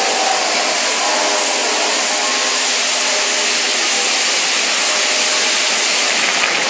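Maltese ground fireworks (ġigġifogu): banks of spinning fire wheels hissing loudly and steadily as they spray sparks.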